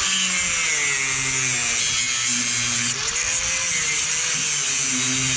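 Mains-powered angle grinder with a cutting disc cutting through a 7 mm steel chain: a loud, continuous high grinding hiss over the motor's note, which wavers in pitch as the disc bites under load.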